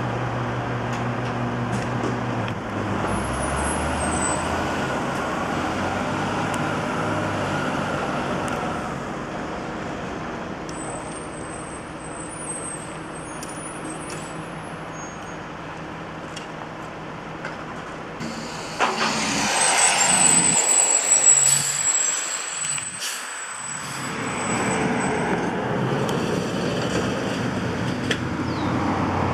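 Garbage trucks at work at the curb, their diesel engines running steadily. About 19 s in, a louder rush of noise with a thin high whine lasts a few seconds.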